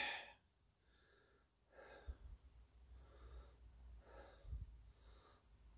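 Near silence with faint breaths close to the microphone, about one a second, and a couple of soft low handling thumps.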